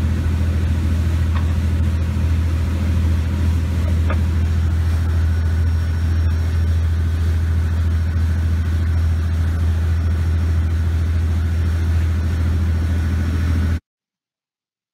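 Steady low drone of a research vessel's engine running, heard on board, which cuts off suddenly near the end.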